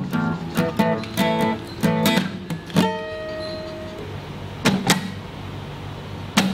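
Acoustic guitar played with a quick rhythm of picked notes and strums, stopping about three seconds in on a chord that is left ringing. Three short sharp strikes follow, two close together near five seconds and one more near the end.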